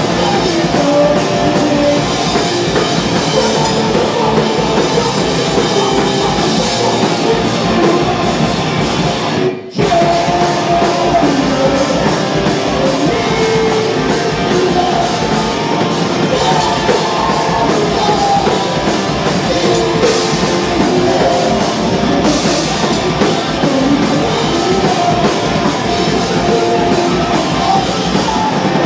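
Live hardcore band playing loud: distorted electric guitars, bass and drum kit under a shouted lead vocal. About a third of the way in the whole band stops dead for a split second, then comes crashing back in.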